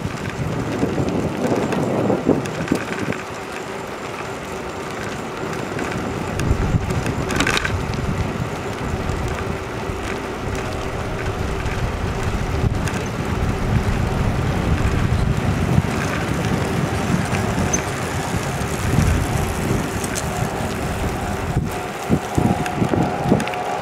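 Wind buffeting the microphone and bicycle tyres rolling on asphalt as a bike is ridden along a street, with a few sharp knocks near the end.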